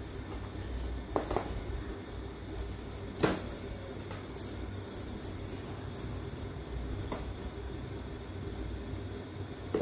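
A few light knocks and taps as a cat paws at a feather wand toy beside a cardboard box, the loudest about three seconds in, over a low steady rumble.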